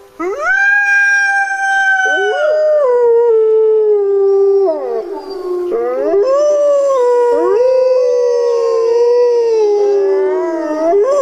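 Several wolves howling together in long overlapping calls, each rising at the start and then sliding slowly down in pitch. There is a brief lull about halfway through before new howls rise again.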